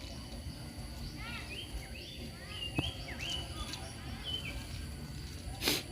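A small bird chirping a quick series of short, high notes over steady outdoor background noise, with a brief rustling noise burst near the end.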